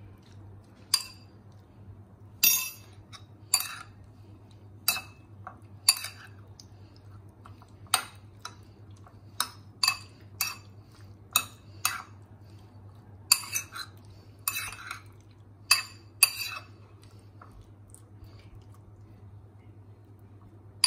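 A steel spoon clinks and taps against a ceramic bowl while stirring syrup-coated cubes of watermelon rind, with irregular sharp clinks that ring briefly, about fifteen in all. A faint steady low hum runs underneath.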